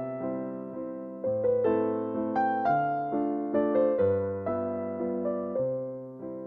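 Background music: a soft, slow piano melody over held chords, each note struck and fading away.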